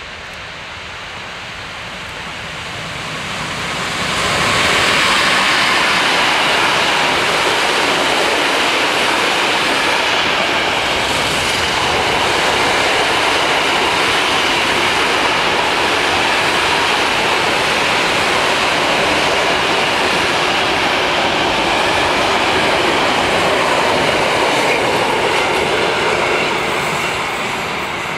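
Intermodal container freight train passing at speed. The locomotive comes by about four seconds in, then a long run of container wagons rolls past with their wheels running steadily on the rails. The sound fades near the end as the train draws away.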